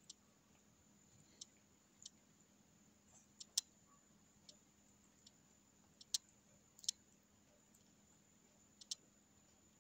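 A cat biting off and chewing blades of cat grass: a dozen or so short, sharp clicks at irregular intervals over near silence.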